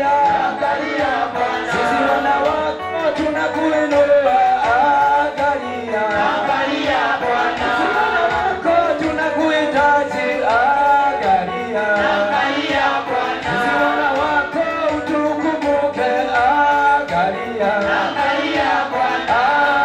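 A man singing a worship song into a microphone, amplified through the hall's loudspeakers, with a continuous sung melody.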